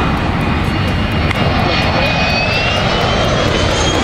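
Beriev Be-200 amphibian's two turbofan engines as the plane flies low overhead: a loud steady rumble with a whine that rises in pitch through the second half.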